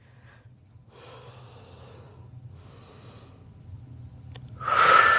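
A woman's audible breathing: two soft breaths, then a louder, sharper breath near the end.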